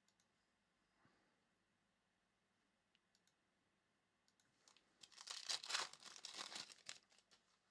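Near silence, then about five seconds in a couple of seconds of crinkling and tearing: a foil trading-card pack wrapper being torn open.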